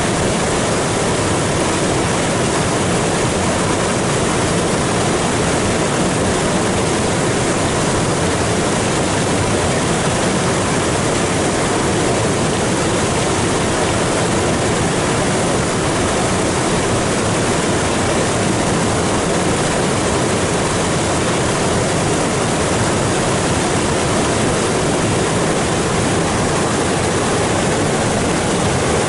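Floodwater rushing across flat limestone rock and pouring over a rock ledge in a small waterfall: a loud, steady, unbroken wash of churning water. The creek is swollen with floodwater after heavy rain.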